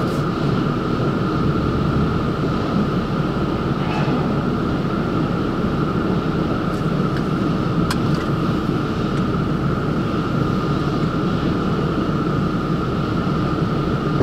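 Drive-through tunnel car wash machinery heard from inside a car: a steady rushing noise with a constant hum.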